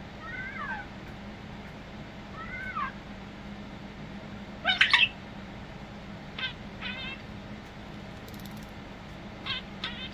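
European starling singing: two drawn-out arched notes that rise and fall in the first three seconds, a loud harsh call about halfway through, then short clusters of quick descending notes.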